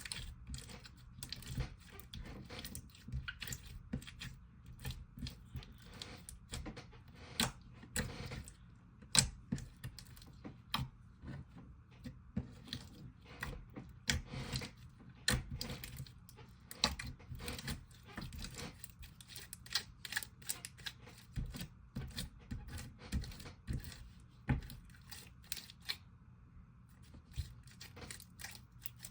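Sticky slime being squished and stretched by hand, making irregular wet clicks and pops. The slime is a little sticky and had to be touched up with an activator pen.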